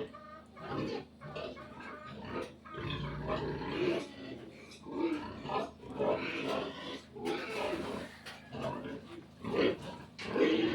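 Pigs grunting and squealing in an irregular run of short calls, one after another, with a longer held squeal near the end.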